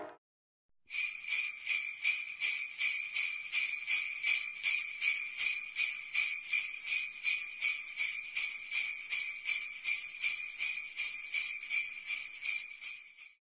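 Sleigh bells shaken in a steady rhythm, about three shakes a second, starting about a second in and stopping just before the end.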